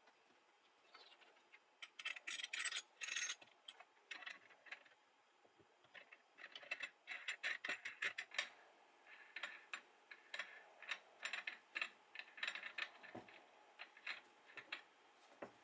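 Bursts of light metallic clicking and rattling from small steel hardware (nuts, washers and wing nuts on threaded rod) being handled and turned, in three spells separated by pauses.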